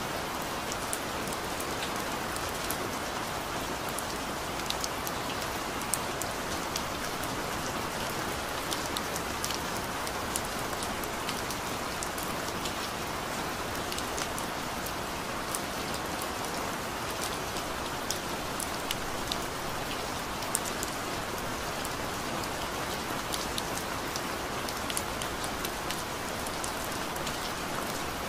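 Steady rain falling on a surface, an even hiss with scattered sharp ticks of individual drops.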